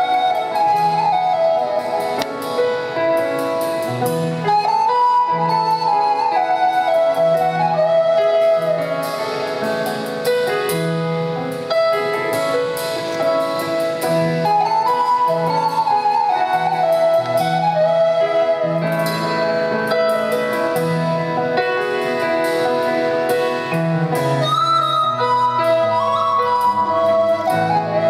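Live ensemble music: a flute carries the melody over grand piano, with a lower piano note repeating steadily and light drum-kit strokes.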